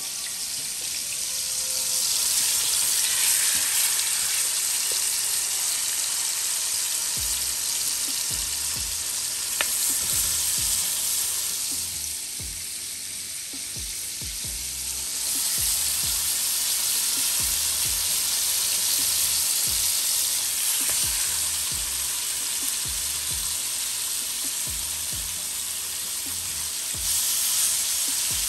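Seasoned beef short ribs sizzling steadily as they brown in hot oil in a pot on maximum heat, with more pieces being laid in. The sizzle eases for a few seconds in the middle and grows louder near the end.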